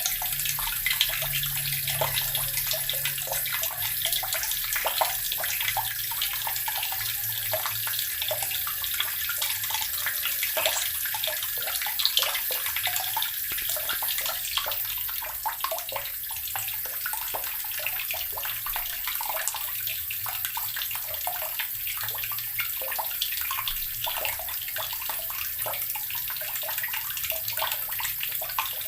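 Water running steadily from a tap and splashing below, with a constant hiss and many small patters of droplets.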